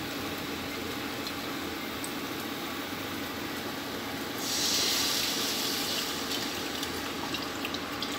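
Tamarind water poured from a steel strainer bowl into a hot pan of cooked-down tomato and onion, a splashing pour that starts about four seconds in and fades away over the next two seconds.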